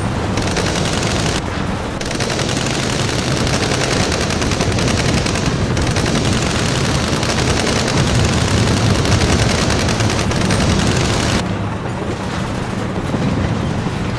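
Sustained rapid automatic rifle fire, several Kalashnikov-type rifles firing continuously in a battle scene, easing off briefly near the end.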